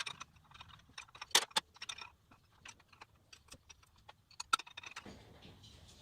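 Irregular metal clicks and clinks of hand tools working on a car engine's accessory pulleys, being tightened to cure a rattle thought to come from a loose pulley. Near the end a faint steady hiss begins.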